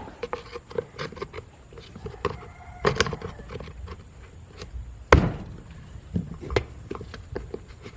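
Irregular knocks and clicks of hard plastic parts being handled and fitted together, with one loud thump about five seconds in.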